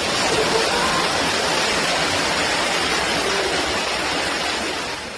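Floodwater rushing, a loud steady noise of flowing water that drops away suddenly near the end.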